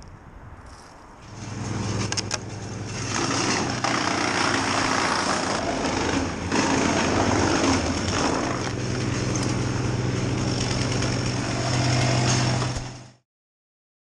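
An engine running steadily under load, with a loud rushing, grinding noise over its low hum; it comes in about a second in and cuts off suddenly near the end.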